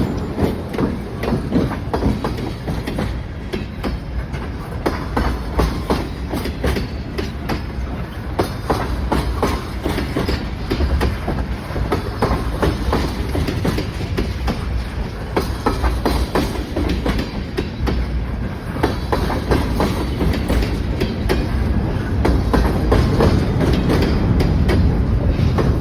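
Ontario Southland Railway freight train rolling past, its wheels clicking over the rail joints in a steady clickety-clack over a low rumble, a little louder near the end.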